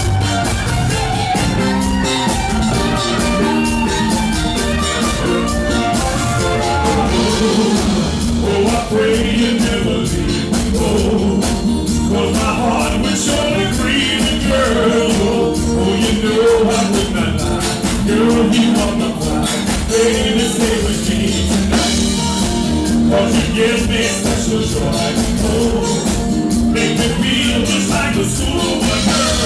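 Live cover band playing an upbeat dance song, with a lead singer over drums, bass guitar and keyboard.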